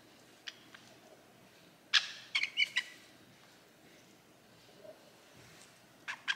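Young caique parrot giving a quick burst of short, squeaky chirps about two seconds in, then two more brief chirps near the end.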